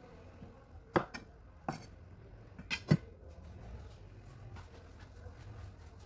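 A few sharp knocks and clinks of kitchenware being handled, about five in all, the loudest about three seconds in.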